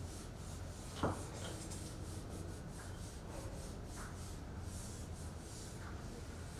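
Whiteboard eraser wiping across the board in repeated rubbing strokes, with one sharp knock about a second in.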